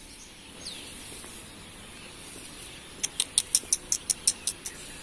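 Bird calls over a faint steady hiss: one short falling whistle about a second in, then near the end a quick run of about ten sharp, high chirps, some five a second.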